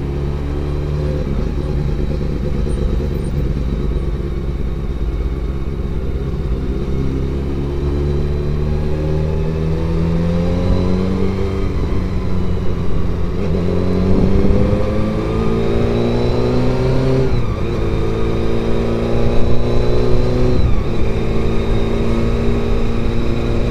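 Honda CBR400RR (NC23) 400cc inline-four engine heard from the rider's helmet: steady at low revs at first, then revving up, its pitch climbing and dropping sharply at two gear changes near the end.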